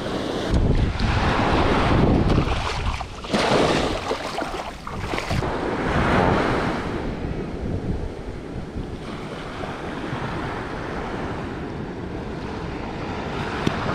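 Small surf breaking and washing up a sandy beach, swelling louder a few times, with wind buffeting the microphone.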